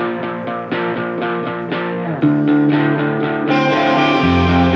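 Instrumental passage of a song played back through Dynaudio Evoke 20 bookshelf speakers driven by two Fosi Audio ZA3 amplifiers in bridged mono mode. Notes strike about four times a second, the chord changes a little past two seconds in, and the sound turns fuller and brighter about three and a half seconds in.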